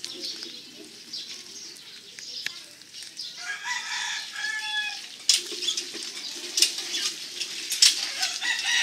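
Chickens in a yard, with a rooster crowing for about a second and a half, starting around three and a half seconds in. Scattered sharp clicks and knocks follow near the end.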